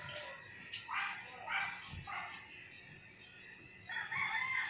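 Quiet background sounds: a steady, rapidly pulsing high insect trill, with a few faint dog barks in the distance.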